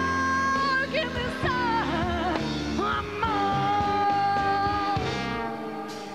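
A female vocalist singing a slow jazz ballad live over big band accompaniment, holding one long steady note in the middle; the band eases down in volume near the end.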